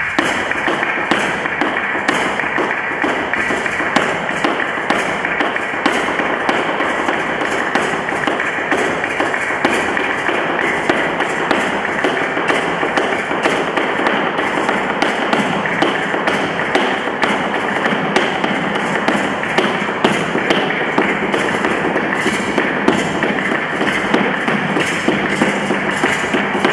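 Flamenco shoes striking a hard studio floor in fast soleá footwork (zapateado): rapid heel and toe taps running without a break.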